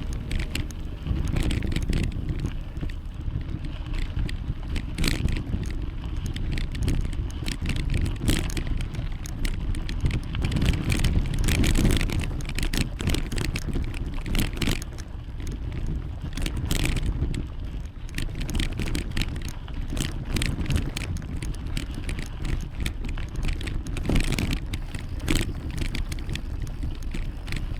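Wind buffeting the microphone and tyre rumble while riding a bicycle, with frequent short rattles and knocks from the bike going over bumps in the road.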